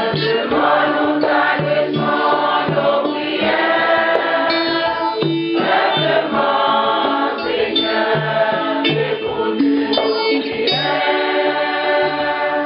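Choir and congregation singing a hymn refrain with instrumental accompaniment and a steady beat. It is the sung response between the spoken prayer intentions of a Mass.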